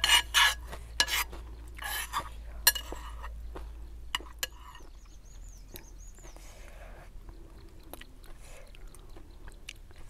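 Metal spoon and fork clinking and scraping against a pan of noodle soup as the noodles are stirred and lifted. There are a few sharp, loud strokes in the first three seconds, then quieter scraping.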